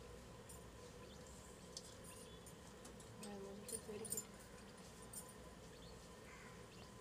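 Near silence: a faint steady hum, with a few short, faint high ticks scattered through and a brief faint pitched sound a little after three seconds.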